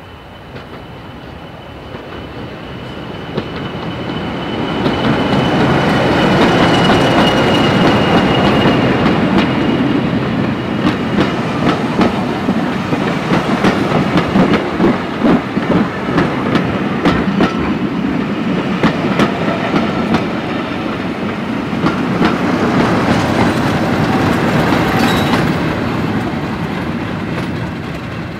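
Class 40 diesel-electric locomotive D345 approaching and passing at close range, with its turbocharger whistle, a thin high tone that falls slightly as the locomotive goes by. Its coaches follow with a rapid clickety-clack of wheels over rail joints, and a Class 50 diesel on the rear of the train passes near the end.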